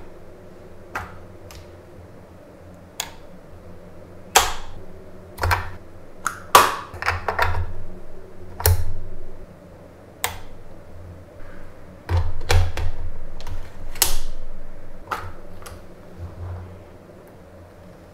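Canon F-1N 35 mm SLR film camera's controls being worked by hand: a string of sharp mechanical clicks, some with a short metallic ring, and a few brief ratcheting rattles. The loudest are a couple of seconds of clustered clicking in the middle and a longer rattling run about two-thirds of the way in.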